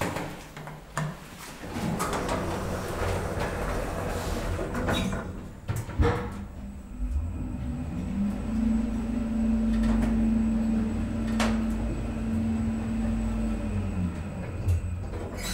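2003 Schindler EuroLift machine-room-less traction elevator: after a button press, its sliding doors close and meet with a knock about six seconds in. The car then travels with a low rumble and a steady drive hum that rises as it starts and falls away as it slows to a stop near the end.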